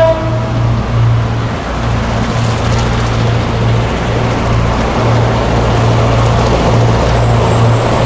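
Three CC 202 diesel locomotives heading a loaded coal train approach under power, their engines giving a heavy, throbbing low hum. Wheel and rail noise builds as they draw near. The last of a horn blast dies away in the first half-second.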